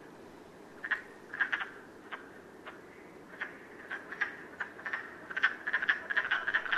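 Chorus of male wood frogs giving short, duck-like quacking calls, scattered at first and crowding together more thickly from about five seconds in: the breeding call that males make to draw females to a woodland pool.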